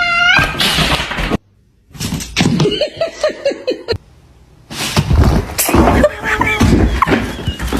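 A person sneezing: a rising drawn-out breath ends in a sharp noisy burst about half a second in. After an abrupt silence comes rhythmic laughing, about four bursts a second, then loud voices and laughter near the end.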